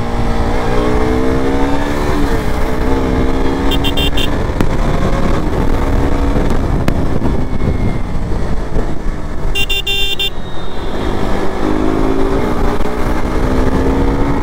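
KTM 250 Duke's single-cylinder engine under way, its pitch climbing, dropping about two seconds in and climbing again near the end, under heavy wind rush on the microphone. Two short high-pitched beeps cut in, about four and ten seconds in.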